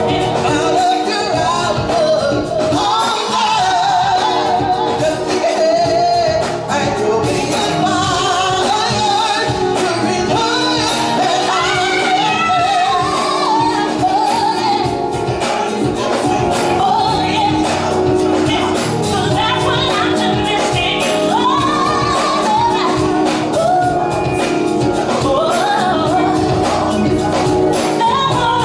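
Live gospel ensemble performing a song: a choir of male and female voices singing over a band with a steady beat.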